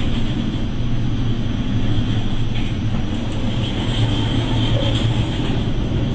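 Steady low drone under a wash of wind and sea noise, heard from inside a ship's bridge as the bow meets heavy storm waves.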